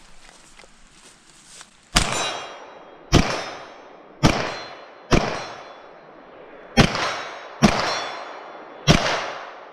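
Seven gunshots in a competition string, roughly a second apart with a slightly longer gap after the fourth. Each shot is followed by a ringing clang that dies away over about a second, typical of steel targets being hit.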